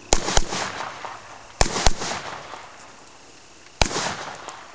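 AR-15 carbine gunshots: two quick double taps, then a single shot near the end. Each shot is followed by a short fading echo.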